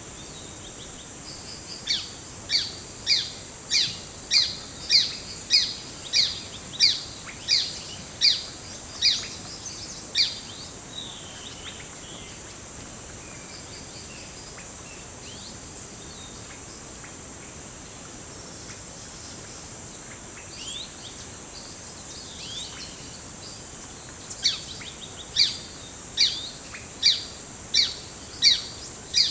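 Forest bird singing a run of loud, evenly spaced repeated notes, about one and a half a second, starting about two seconds in and stopping near the ten-second mark, then starting again near the end. Under it a steady high insect drone continues.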